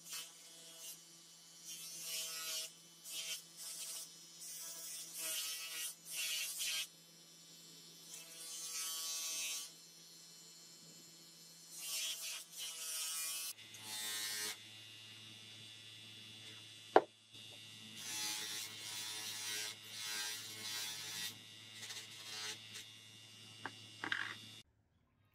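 Bench grinder motor running steadily with an abrasive wheel, and repeated short grinding hisses, each lasting up to about a second, as a metal sword part is pressed against the spinning wheel. A single sharp click sounds partway through.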